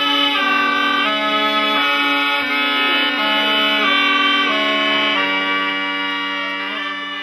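Sicilian zampogna (bagpipe) and ciaramella (wooden shawm) playing a traditional Christmas tune together: a reedy melody of changing held notes over a steady drone. The music begins to fade near the end.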